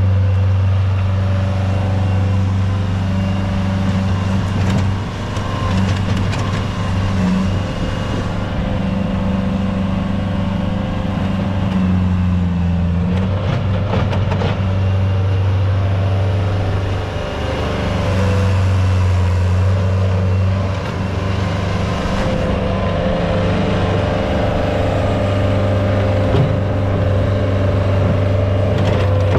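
Dump truck's diesel engine running steadily in a low drone, with small shifts in pitch, as the truck creeps forward.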